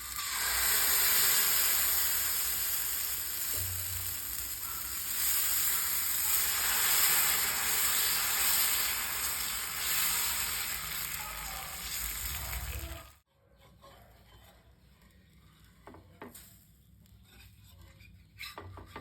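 Dosa batter sizzling on a hot griddle, a loud steady hiss that cuts off abruptly about thirteen seconds in. After that only faint scattered clicks and knocks remain.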